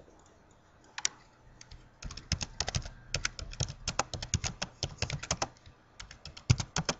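Typing on a computer keyboard: a single keystroke about a second in, then a fast, uneven run of key clicks from about two seconds until just before the end.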